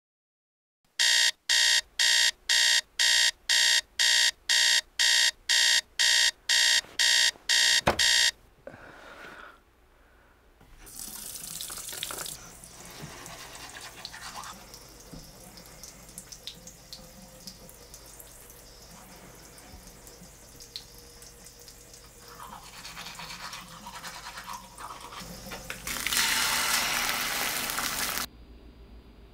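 An electronic alarm clock beeping, about two beeps a second for some seven seconds, then cutting off. Then a manual toothbrush scrubbing teeth, and near the end a loud sizzle of an egg frying in a pan.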